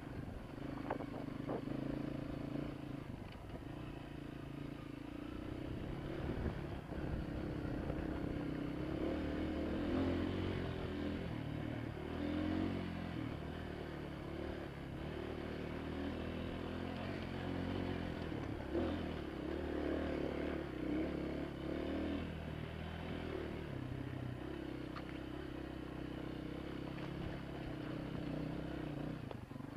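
Honda CRF230F dirt bike's single-cylinder four-stroke engine running on a trail ride, its pitch rising and falling as the throttle changes.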